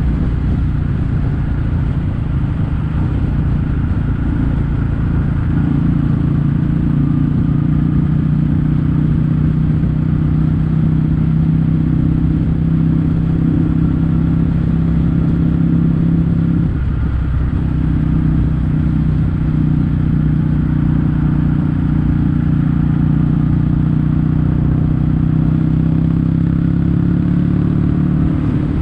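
Kawasaki W800's air-cooled parallel-twin engine running steadily at a cruise through Yamato stainless-steel Cabton silencers, heard from the moving bike. The note breaks briefly once, just past halfway, then carries on at the same pitch.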